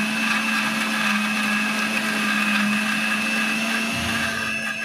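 Electric mixer grinder running steadily at full speed with a constant motor whine, grinding onion and green chillies into a paste in its steel jar.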